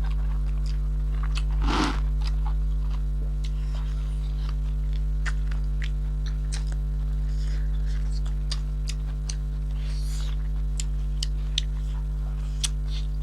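Steady electrical mains hum with a string of small sharp clicks and smacks from people chewing and biting into chicken. There is a short voice sound about two seconds in.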